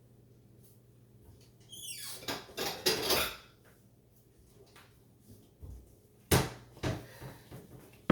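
A kitchen cupboard opened and a dish rattled as it is taken out, about two seconds in. A little after six seconds the dish is set down on the counter with a sharp knock, followed by a lighter knock.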